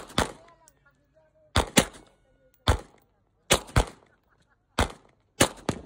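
Semi-automatic pistol fired in a steady string: about ten sharp shots, several coming in quick pairs, each trailing off briefly.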